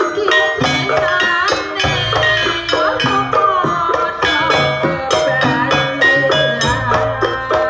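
Traditional Javanese jaranan dance music: a quick, steady stream of bright struck pitched notes over drums, with a wavering melody line above.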